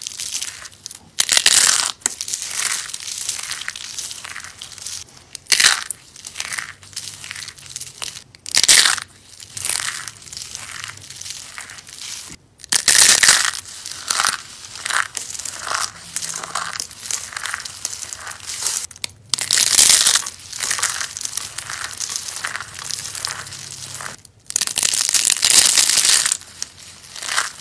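Colored soap being crushed, crunching and crumbling in irregular crackly bursts, with a louder crunch every few seconds and a longer, louder stretch near the end.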